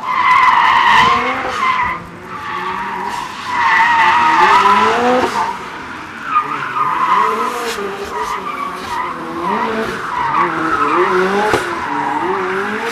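Toyota 86 drifting: tyres squealing in long, wavering screeches over the engine revving up and down. The squeal is loudest about a second in and again around four to five seconds in.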